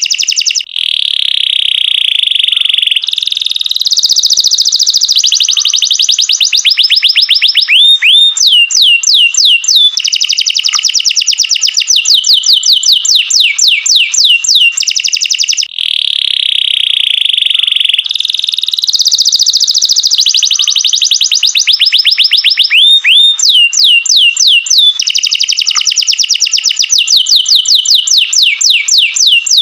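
Domestic canary singing a long, loud, unbroken song of fast trills, sustained rolling tones and runs of rapid slurred notes. The same sequence of phrases seems to repeat about halfway through.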